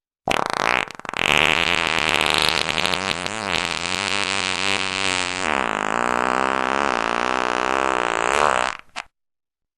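A fart sound effect: a short blip, then one long, drawn-out fart lasting about eight seconds with a wavering pitch, ending in a brief sputter.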